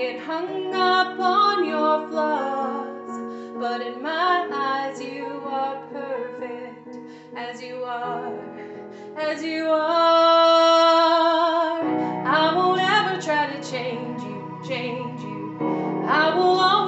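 A song with a woman singing over a sustained accompaniment. About ten seconds in she holds one long note with vibrato.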